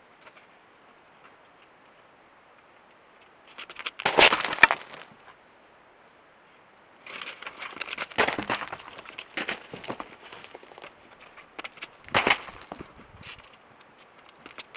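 Desert bighorn sheep moving on rocky ground close to a trail camera's microphone: crackling, crunching bursts of hooves on rock and grit. The loudest comes about four seconds in, a busy cluster follows in the middle, and another sharp one near the end, over a faint steady hiss.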